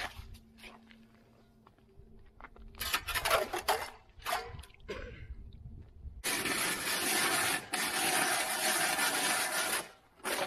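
Hand-crank ice auger boring through river ice: a few sharp scraping strokes about three seconds in, then a steady, hissing rasp from about six seconds in that breaks briefly and stops near the end.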